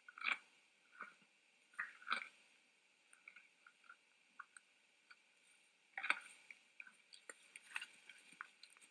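Red deer chewing crunchy feed: irregular sharp crunches and clicks, the loudest near the start, about two seconds in and about six seconds in, with smaller ticks between.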